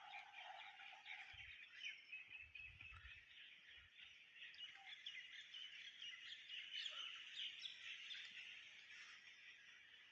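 Faint chorus of many small birds chirping, with overlapping short calls throughout.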